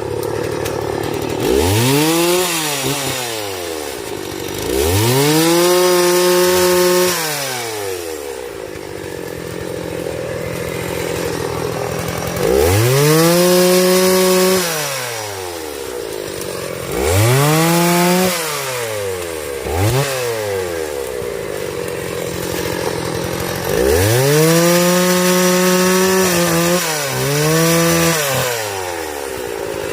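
Two-stroke chainsaw idling and revved to full throttle five times, each rev a sharp rise in pitch that holds for a second or more before falling back to idle. The last, longest rev dips briefly and comes back up.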